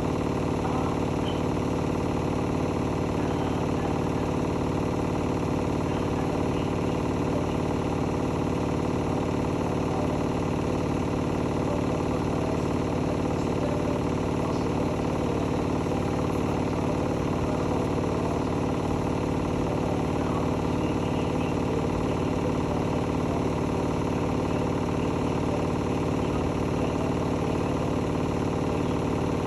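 Hotpoint-Ariston Aqualtis AQXGF 149 S front-loading washing machine running at a steady speed, an even machine hum with no change in pitch or level.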